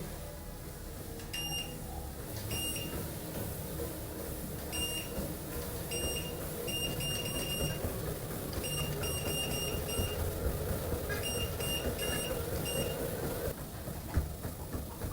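Walking pad treadmill's control electronics beeping: many short, high-pitched beeps, some single and some in quick runs, as its settings are worked. Under them the treadmill's motor hums steadily, stopping near the end.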